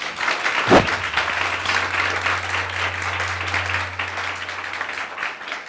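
Studio audience applauding after a guest introduction: dense clapping that fades out near the end, with one loud sharp knock about a second in and a low steady hum underneath.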